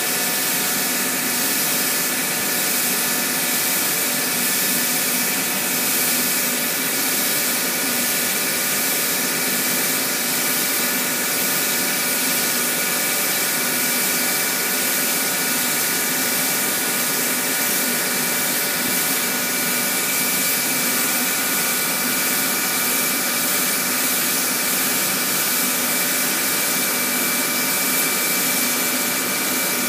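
Air spray gun hissing steadily as spray-on chrome is sprayed onto a part, over a constant mechanical hum with several fixed tones.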